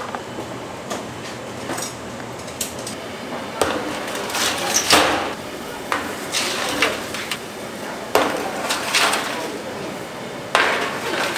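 Kitchen work sounds: scattered knocks and clinks of utensils, with three longer noisy swells about four, eight and ten and a half seconds in.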